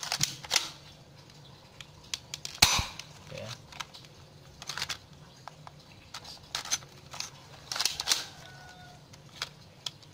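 Spring-powered gel blaster replica of a Glock 18C with a metal slide, clacking and clicking as the slide and mechanism are worked by hand. The clicks are sharp and separate and come at uneven intervals, the loudest a little under three seconds in.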